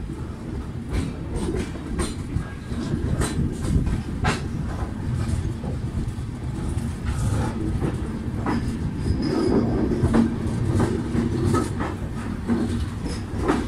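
Passenger train coach rolling over the rails: a steady low rumble of the wheels with irregular sharp clicks as they pass rail joints and points, heard from the open coach doorway.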